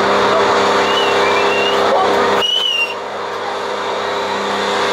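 Methanol-fuelled Super Stock pulling tractor engine idling steadily at the start line, a few short high whistling chirps over it. The sound dips briefly about halfway, then builds back.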